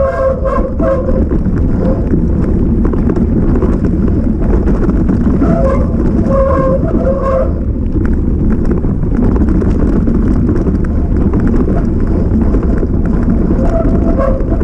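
Mountain bike descending a trail: a steady, loud rumble of wind buffeting the on-board microphone and tyres running over rough ground. Brief higher tones cut through near the start and again about six to seven seconds in.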